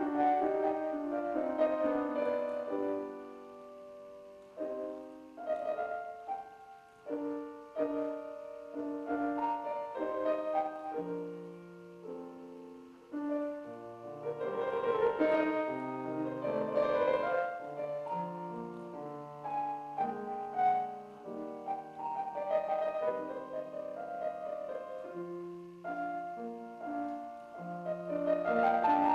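Grand piano played solo: a classical piece with a melody over chords, growing softer a few seconds in and swelling louder again about halfway through.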